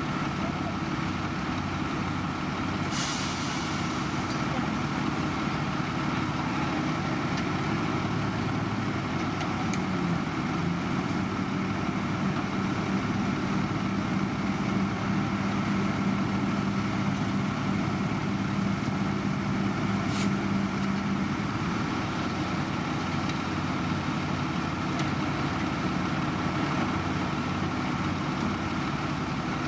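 Heavy diesel construction machinery running steadily, with a short hiss of air about three seconds in. A steady low hum joins in from about ten seconds to about twenty-one seconds.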